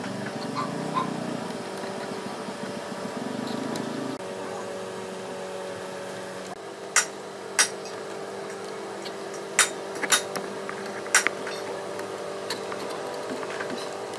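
Sharp metallic clicks and taps, about five of them and spread over several seconds, as wire terminals and a screwdriver are handled against the screw terminals of a generator's outlet panel. A steady hum runs underneath.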